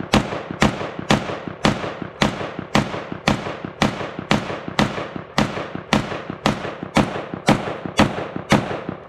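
SIG SG 552 Commando (Swiss Stgw 04) rifle in 5.56 mm, fired shot by shot in a steady string of about two shots a second, each shot with a short ringing tail. The string stops near the end.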